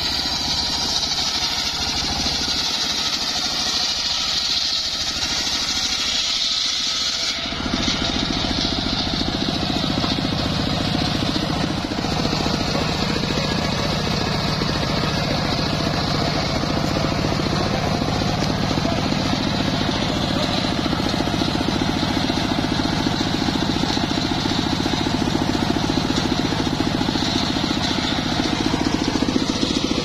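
Homemade circular sawmill running steadily as its blade saws a slab off an acacia log. The sound grows fuller and heavier about seven seconds in.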